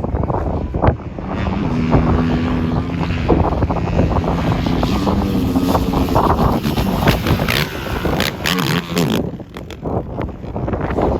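Off-road vehicle engine running as it drives over sand dunes, with wind buffeting the microphone, the gusts strongest in the second half.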